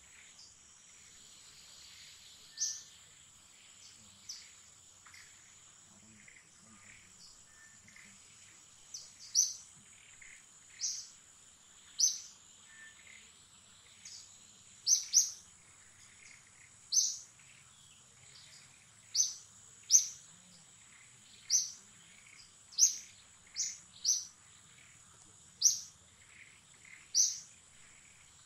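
Forest ambience: a bird repeats a short, sharp, high chirp, now and then at first and every one to two seconds from about a third of the way in. Under it runs a steady high-pitched insect drone.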